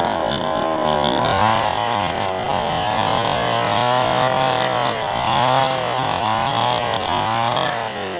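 Gasoline mini chainsaw, a Stihl replica with a 20-inch bar, running under load as it rips lengthwise along a log to cut a plank. The engine note wavers up and down as the chain bites.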